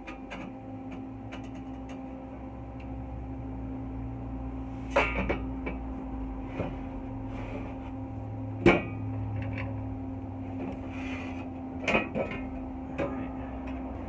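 A few sharp metal knocks, the loudest just past the middle, as a square steel-tube subframe connector is handled and pressed up against a car's underside frame rail, over a steady low hum.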